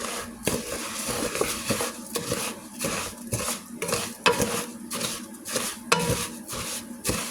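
A utensil stirring and scraping food in a frying pan with repeated strokes and clicks against the pan, while the food sizzles as it browns.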